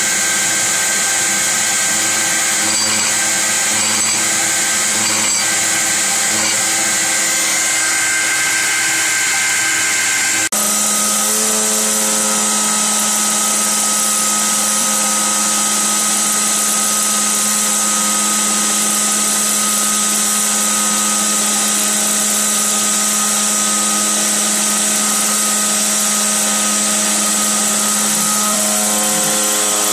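Terco CNC 45 milling machine cutting aluminium plate, its spindle running steadily under a high hiss. For the first ten seconds or so it is peck-drilling 2 mm holes; then the sound changes abruptly to a steadier low hum as it mills the part's outline.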